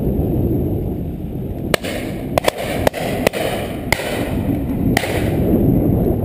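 Distant shotgun shots at driven pheasants: about seven sharp reports between about two and five seconds in, a few in quick pairs. A steady low wind rumble on the microphone runs underneath.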